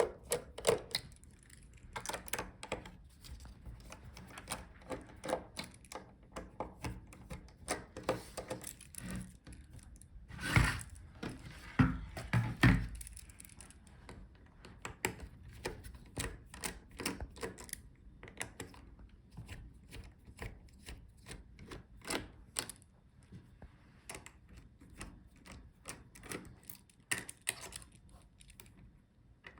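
Irregular small clicks and taps of a screwdriver and hands working the hinge screws and plastic case of a laptop, with a few louder knocks between about ten and thirteen seconds in.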